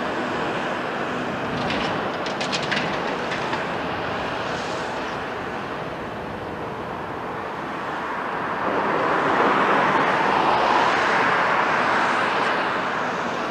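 CAT 374F L crawler excavator with a C15 engine working rubble: steady diesel and hydraulic noise, a short rattling clatter about two seconds in, and a louder, hissier swell from about nine seconds in that eases near the end.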